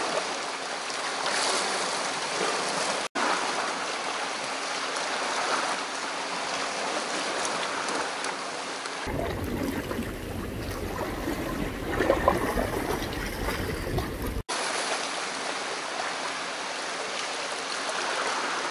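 Seawater washing and lapping against shoreline rocks, a steady rushing wash. About nine seconds in it changes for a few seconds to a deeper, rumbling wash with a few sharp knocks, then returns to the lighter wash.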